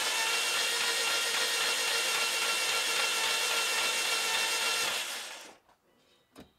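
Subaru EJ20 boxer engine cranking over on its starter motor with a steady, even whir, tapering off and stopping about five and a half seconds in. The engine has no compression on any cylinder, which a mechanic suggests might be a broken camshaft.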